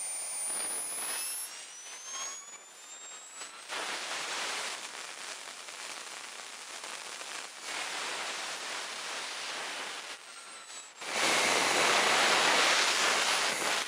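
KingTech K-80F model jet turbine running on the ground at about 120,000 rpm: a steady jet rush with a thin high whine that slides in pitch. It grows markedly louder about three seconds before the end.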